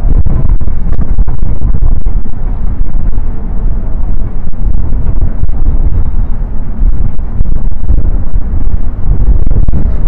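Strong gusting wind buffeting the microphone: a loud, low rumble that overloads the recording, dipping briefly between gusts.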